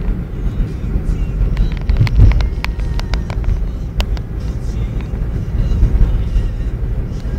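Car driving, heard from inside the cabin: a steady low rumble of road and engine noise, with a run of short sharp clicks about two to four seconds in.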